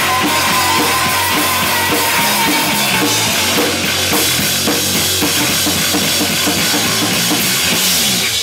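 Live rock band playing loud, with the drum kit driving hard under steady cymbal wash and bass drum hits. A held high note sounds over the first couple of seconds.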